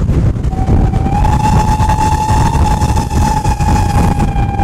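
A steam locomotive's whistle sounding one long, steady blast, starting about half a second in and rising slightly in pitch as it opens fully, over a loud low rumble.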